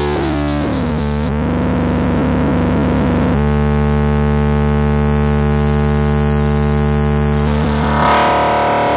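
Modular synthesizer playing a dense electronic drone: gliding, wavering pitches in the first second or so, settling into a steady sustained chord about three seconds in, and shifting to a brighter tone near the end as its knobs are turned.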